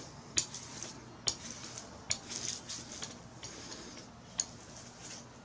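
Small hand paint roller being pressed and rolled back and forth over fabric laid on a styrofoam relief: a scratchy rubbing, broken by irregular sharp clicks of the roller and handle.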